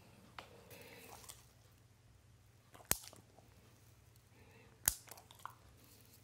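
Dog nail clipper snapping through a dog's toenail: two sharp clips about two seconds apart, with a few fainter ticks from the clipper handles and the dog's nails.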